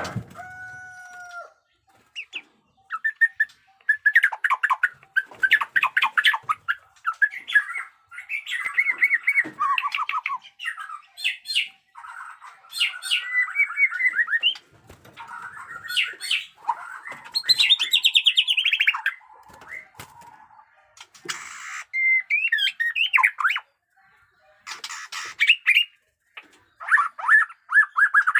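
White-rumped shama (murai batu) singing loud, varied phrases in bouts with short pauses: fast trills, rapid harsh rattling notes and sweeping whistles.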